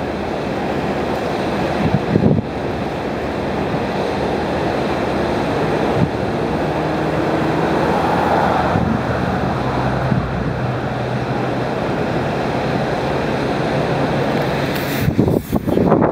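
Wind blowing across the microphone: a steady rushing noise, with a low steady hum joining about six seconds in and stronger gusts buffeting near the end.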